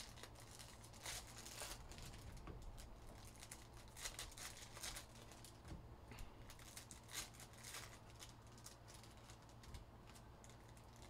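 Faint crinkling and rustling of foil trading-card pack wrappers and cards being handled, in short scattered bursts over a low steady hum.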